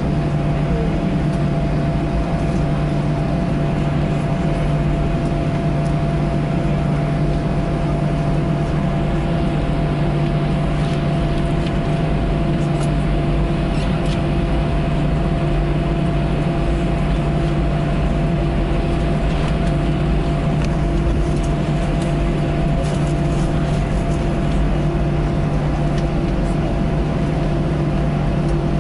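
Steady cabin noise of an Airbus A321 taxiing, heard from a window seat over the wing: jet engines at low thrust with a constant low hum and a faint higher steady tone.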